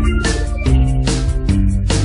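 Background music: a band track with guitar over a steady drum beat.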